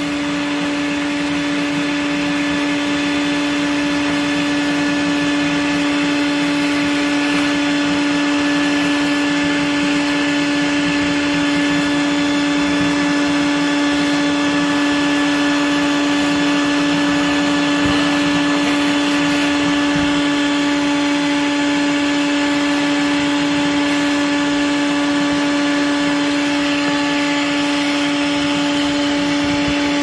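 Bee vacuum running steadily, sucking live honeybees up through its hose: a constant motor hum at one even pitch over a rush of air.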